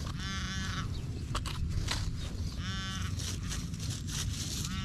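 Nokta Legend metal detector sounding a target tone three times as the coil is swept back and forth over a signal, each tone lasting about half a second, with a few sharp clicks in between.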